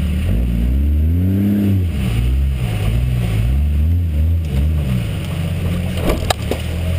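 A 4x4 truck's engine revving up and down several times as it crawls over a rough trail, then running steadily. About six seconds in come a few sharp clicks as branches brush against the truck.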